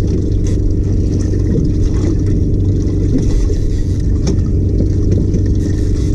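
Boat's outboard engine idling steadily, a low even hum, with a few faint clicks over it.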